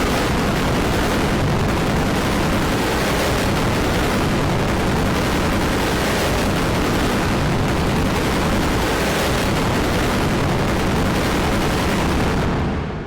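Harsh, heavily distorted wall of noise from stacked cough samples, so dense that no single cough stands out; it holds steady and loud, then fades out near the end.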